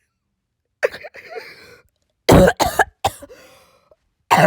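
A sick person coughing: a short cough about a second in, a harder pair of coughs a little after two seconds, and another cough starting near the end.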